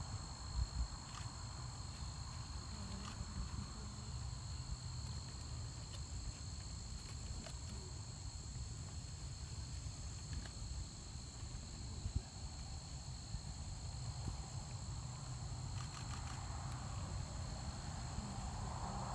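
Insects, such as crickets, chirping steadily in a high-pitched chorus, over a low rumble of wind on the microphone.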